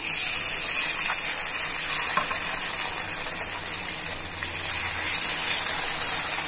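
Marinated chicken hearts deep-frying in hot oil in an aluminium kadai: a loud, steady sizzle and crackle as handfuls of pieces are dropped into the oil.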